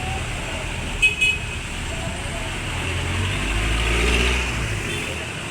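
City street traffic: two quick horn toots about a second in, then a passing vehicle's engine that rises and fades in the middle, over a steady traffic rumble.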